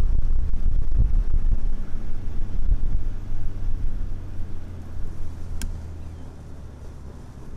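A vehicle engine running with a steady low hum, under wind rumbling on the microphone that dies away over the second half. One sharp click about five and a half seconds in.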